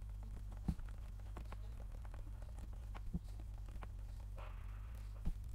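Faint scattered ticks and taps of a stylus on a pen tablet while handwriting, over a low steady hum.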